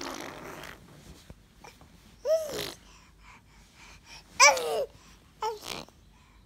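A six-month-old baby babbling: three short, high-pitched vocal sounds, the loudest about halfway through, after a short breathy sound at the start.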